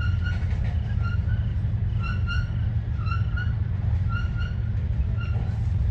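A stopped train idling on nearby tracks as a steady low rumble, with short high chirps repeating every half second or so over it.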